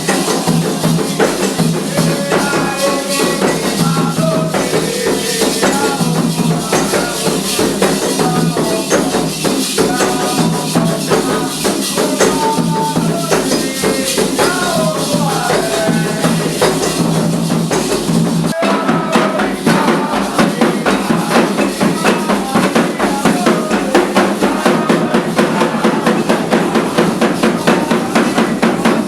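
Candomblé ritual music: voices singing over steady hand drumming and shaken rattles. There is a sudden break about two-thirds of the way in, after which the drumming comes through stronger.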